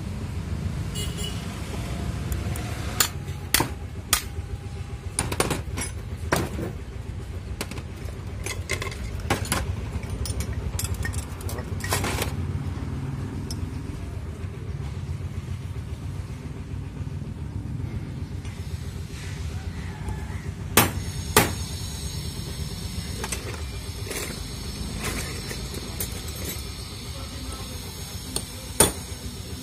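Metal hand tools clinking and knocking against an auto-rickshaw starter motor's bendix drive while it is held in a steel pipe and its lock is fitted. There are scattered sharp knocks, a few louder ones, over a steady low rumble.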